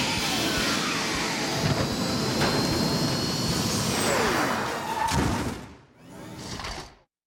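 Sound effect of a jet-powered car speeding off: a loud jet-engine rush with sweeping rising and falling pitch glides. It dies away about six seconds in, swells once more briefly, then cuts off.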